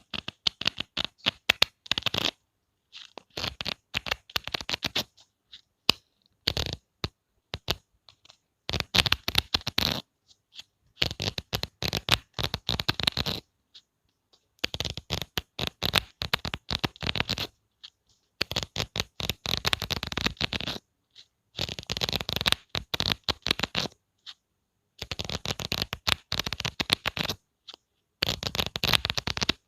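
Book pages flicked off the thumb at the corner, a rapid run of crisp page snaps. Repeated about ten times in runs of one to three seconds, with short silent pauses between.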